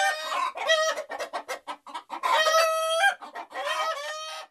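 Hens clucking in quick short calls, with two longer drawn-out calls about two and a half and four seconds in.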